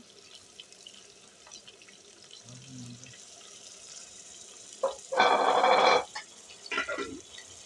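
A brief burst of splashing and hissing, under a second long, about five seconds in, as raw meat and its juices go into a pan of onions cooking in oil.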